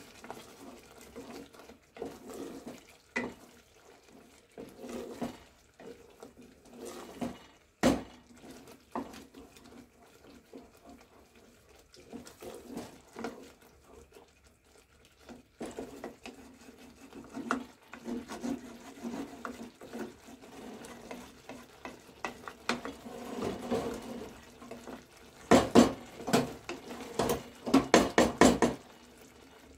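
Wooden spoon stirring thick tomato sauce in a metal pot, scraping and knocking now and then against the pot. Near the end comes a quick run of sharp clacks, the loudest part.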